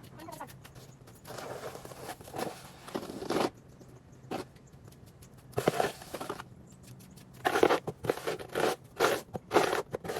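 A snow shovel scraping and scooping snow in a series of separate strokes, one long scrape about one to three and a half seconds in and a quick run of shorter ones near the end.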